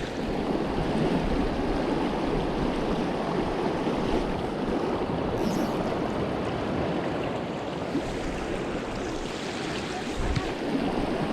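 Small creek running high with spring runoff, its water rushing steadily. There is a brief low bump at the start and another near the end.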